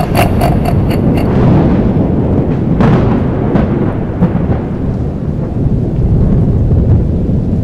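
Thunderstorm: a continuous low rumble of thunder over the hiss of heavy rain, with a sharper thunderclap about three seconds in. A short, rapidly pulsing bell-like ring sounds over it in the first second.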